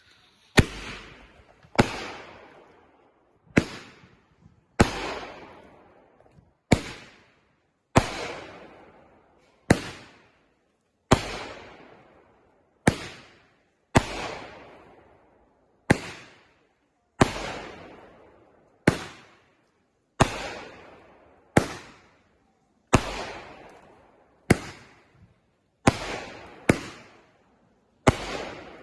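Fireworks going off in a steady string, about twenty sharp bangs, one every second or so, each trailing off in a fading crackle and echo.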